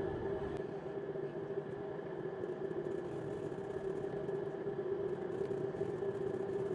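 A steady mechanical hum, such as a motor or fan running, made of several even, unchanging tones.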